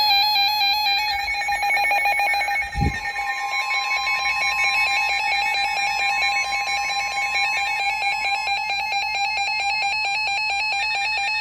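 NOAA weather radios sounding their warning alarm for a severe thunderstorm warning: several steady tones layered with rapid, even beeping, with another steady tone joining about three seconds in.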